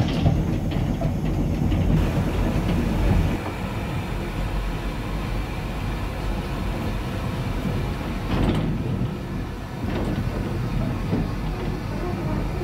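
Andrew Barclay 0-6-0 saddle tank steam locomotive running along the line, heard from inside its cab: a steady, dense rumble of wheels and motion that eases a little about three seconds in. Two short sharp knocks come past the middle, about a second and a half apart.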